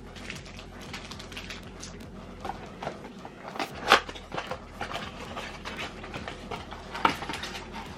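Rustling and handling of trading-card packs and their plastic and cardboard packaging, with two sharp clacks about four seconds and seven seconds in.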